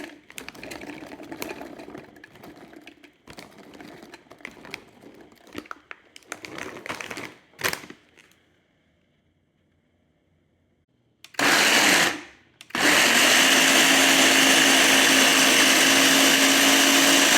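Kitchen blender switched on for about a second, then run again steadily with a loud whirr and a steady hum, blending garlic. Before it, scattered light clicks and rustles of kitchen handling, then a few seconds of near silence.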